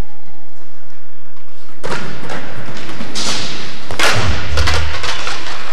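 Skateboard hitting the floor as a young skater bails and the board flips over: sudden thuds about two and three seconds in, then a louder one about four seconds in, followed by a low rumble for about a second.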